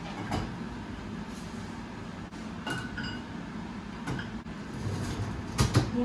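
Dishes clinking lightly as they are set into a dishwasher's wire racks, and the upper rack rolled back in, with a couple of louder knocks near the end.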